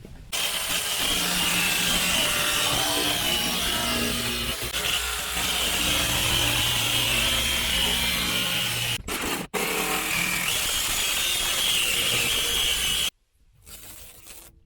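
Jigsaw cutting through the sheet-steel roof of a Sprinter van, the last cut of a square opening. The saw runs steadily, cuts out twice for an instant about nine seconds in, and stops abruptly near the end as the cut is finished.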